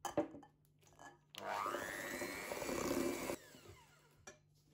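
A Kenwood Chefette electric hand mixer whirs with a rising whine as it spins up, beating butter and egg for about two seconds, then is switched off and winds down with a falling whine. A couple of sharp knocks come before it starts.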